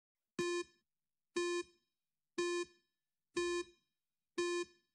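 Countdown timer sound effect: five short, identical electronic beeps, one a second, with silence between them.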